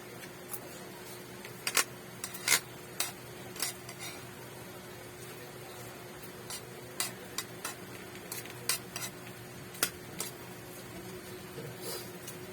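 Utensils clinking and scraping against a dish while eating: irregular sharp clicks, some in quick pairs, over a steady faint hum.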